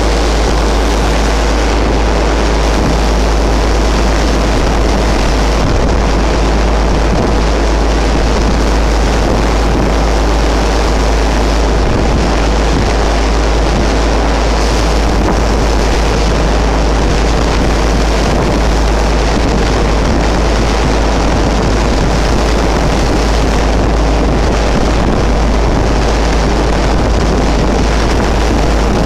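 Loud, steady wind buffeting on the microphone aboard a small moving motorboat, over the even drone of its engine and the rush of the sea.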